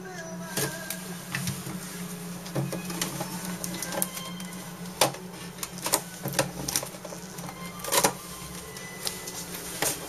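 Plastic clicks and knocks from an HP inkjet printer's casing being handled and taken apart, over a steady low hum. A cordless electric screwdriver whirs briefly at the start as it backs out a screw.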